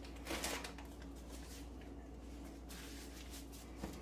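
Faint rustling of a plastic cheese-slice package as slices are handled, a few soft crinkles over a low steady room hum.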